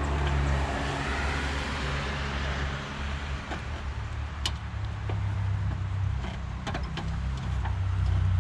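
Low steady rumble of a motor vehicle, swelling in the first couple of seconds, with a few light sharp clicks a few seconds in.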